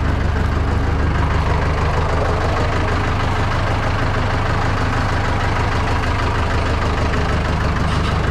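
Engine idling steadily with a low, even beat.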